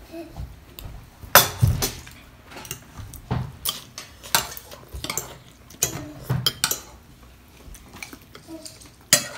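Cutlery clinking against plates and bowls as people eat, in a string of irregular sharp clinks.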